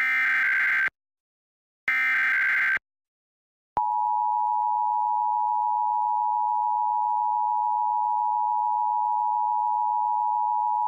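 Emergency Alert System test tones: the last two of three SAME digital header bursts, each about a second long and a second apart, then, about four seconds in, the steady two-tone EAS attention signal (853 and 960 Hz) sounding together without a break.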